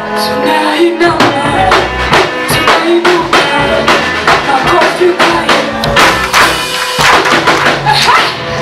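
Praise band playing an upbeat gospel song, with a driving, even drum beat throughout.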